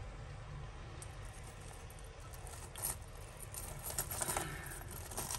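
Metal necklace chains and beads clinking lightly as tangled necklaces are handled and worked apart, with a few small clicks, mostly in the second half.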